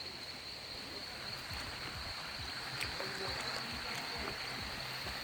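Water from a small natural spring running steadily, with a steady high-pitched whine throughout.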